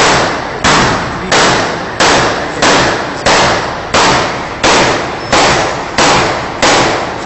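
Repeater gun firing shot after shot at a steady pace, about three shots every two seconds. Each shot has a long, echoing tail that fades before the next.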